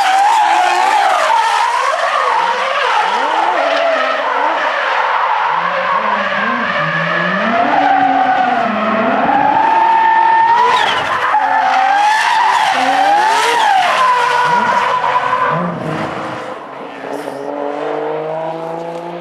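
Nissan Silvia S15 drift car's 1000 PS RB26 straight-six revving hard, its pitch rising and falling quickly as the driver works the throttle through a drift, with tyres skidding and squealing. The sound drops away somewhat after about sixteen seconds as the car moves off.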